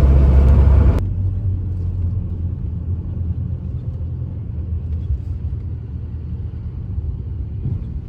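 Low, steady engine and road rumble of a car heard from inside the cabin while driving. It drops abruptly to a quieter rumble about a second in.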